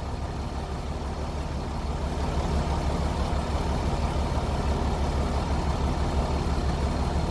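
Stump grinder's engine running steadily at low throttle while its cutter bores slowly into a stump.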